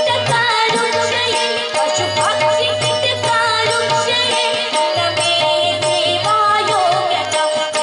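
A women's group singing a Marathi–Hindi devotional bhajan, the melody bending and ornamented, over a steady held drone note and a regular beat of hand-drum strokes.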